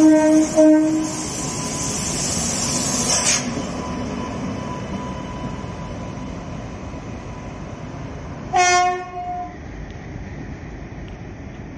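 WAP7 electric locomotive's horn: a broken, wavering blast that stops about a second in, then a second, shorter blast of about a second two-thirds of the way through. The horn sounds like a donkey braying. Between the blasts the locomotive runs with a steady noise, with a short hiss about three seconds in.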